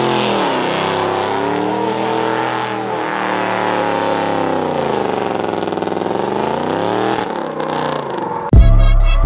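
Ford F-150 pickup's engine revving, its pitch rising and falling in slow swells as it spins donuts with the rear tyres spinning. About eight and a half seconds in, loud hip-hop music with heavy bass and drums cuts in.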